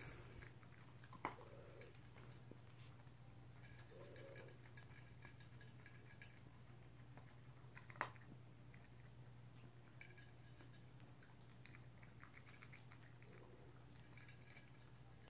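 Toy poodle eating from a food bowl: faint chewing and clicking of food and bowl. Two sharper clicks come about a second in and about eight seconds in.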